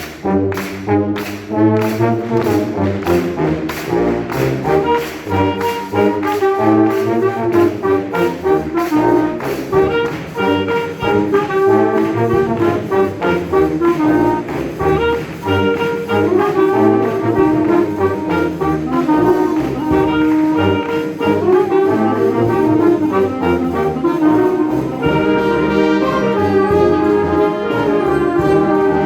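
Concert wind band playing, brass to the fore, over a steady percussion beat; the music starts suddenly at the very beginning.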